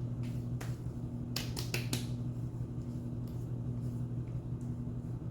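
About six sharp slaps in the first two seconds, then a few fainter taps: hands slapping and patting aftershave splash onto the face. A steady low hum runs underneath.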